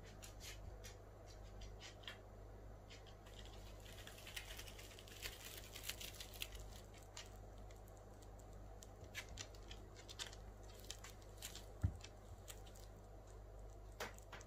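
Faint scattered light clicks and a brief rustle from pets moving about a litter box on a wooden floor, with one soft thump about twelve seconds in.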